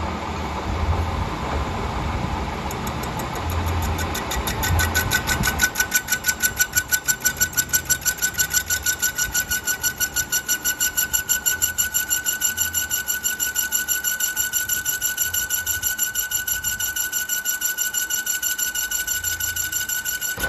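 Lathe running: a rumbling start, then from about five seconds in a high, steady whine that pulses evenly about four to five times a second.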